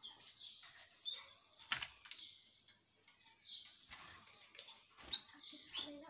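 Caged canaries giving short, high chirps, with scattered sharp clicks and brief flutters as the birds move about the wire cage.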